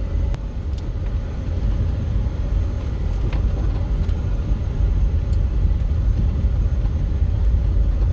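Steady low rumble of a vehicle in motion, engine and road noise heard from on board.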